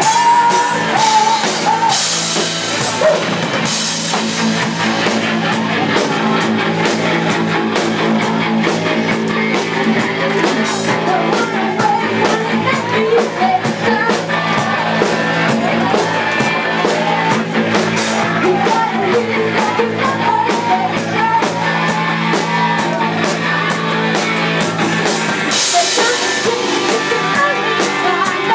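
A rock band playing live with drum kit, electric guitar and bass, and a voice singing. Swells of cymbal wash come about two seconds in and again near the end.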